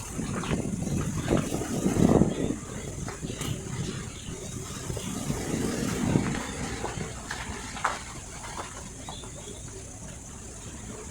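Car driving, with uneven low engine and road rumble that swells twice and scattered light knocks.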